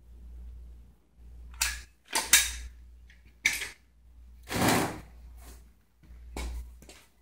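A series of sharp clicks and knocks, about eight, irregularly spaced, with a longer scraping knock about halfway through: tools and concrete blocks being handled and set down.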